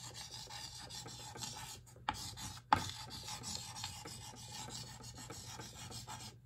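Chalk scratching on a chalkboard in quick strokes as words are hand-written, with brief pauses between strokes and a couple of sharp taps a little after two seconds in.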